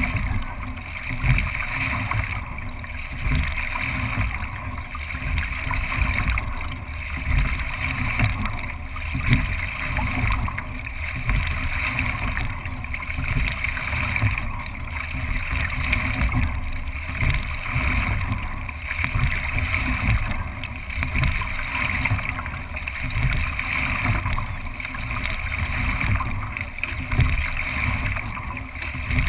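Water rushing and gurgling along the hull of a racing single scull, with a low wind rumble on the boat-mounted microphone. The sound swells and eases about every two seconds, in time with the sculler's strokes.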